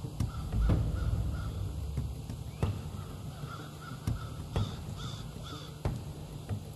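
Turkey yelping: several short series of raspy yelps, over a low rumble on the microphone and a few sharp clicks.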